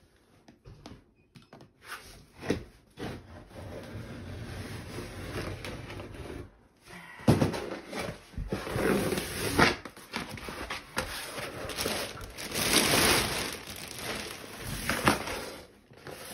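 Old sheet linoleum being pulled up off the subfloor by hand and with a hooked floor knife: irregular scraping, crackling and tearing as the sheet peels away and its deteriorated glue lets go. It comes in louder stretches in the second half.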